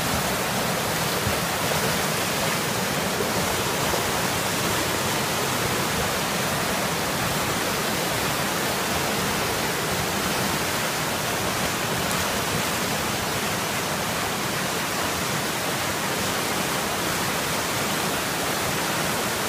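A rain-swollen river in flood, its muddy water rushing and churning over rocks in a loud, steady roar of whitewater.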